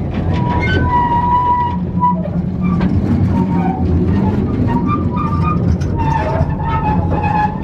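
Small coal-mine trolley train running on its rails: a steady low rumble and rattle with scattered clicks, over it wavering high-pitched metal squeals from the wheels on the track.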